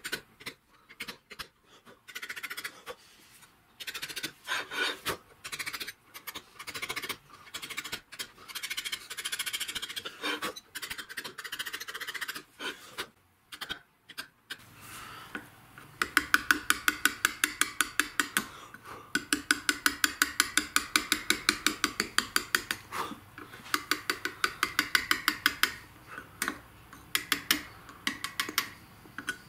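A hand chisel cutting letters into Welsh slate. For the first half it makes irregular scratchy, scraping strokes. From about halfway it changes to quick, light mallet taps on the chisel, about four or five a second.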